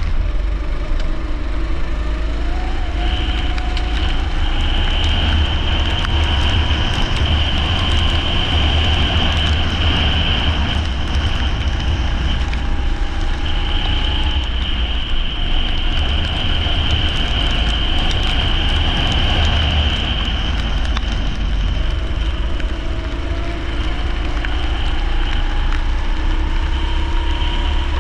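Leisure kart engine running at racing pace, its pitch climbing slowly as it accelerates and dropping back, several times. A steady high whine comes and goes, over heavy low rumble.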